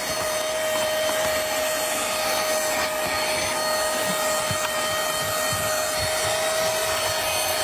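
Small handheld car vacuum cleaner running steadily: a constant motor whine over the hiss of suction.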